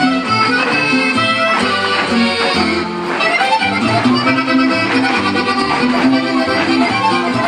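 Accordion-led Mexican norteño dance music, the accordion playing a busy melody over a bass line that alternates notes on a steady beat.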